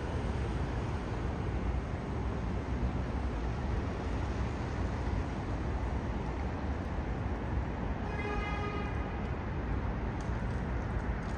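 A New York City Subway 7 train's R188 car running along the elevated track, heard from inside as a steady rumble. A brief pitched tone sounds about eight seconds in.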